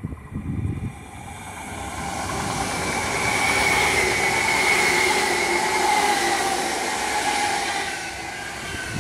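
ICE 4 high-speed electric train passing close by at speed: a rushing noise of wheels and air that swells from about a second in and stays loud, with a steady whine that slowly falls in pitch as the cars go by.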